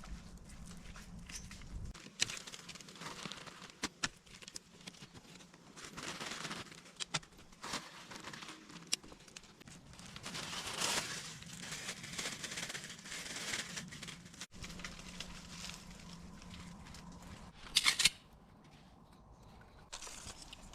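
Irregular rustling and crinkling with scattered sharp clicks and snaps, and a short, louder burst near the end.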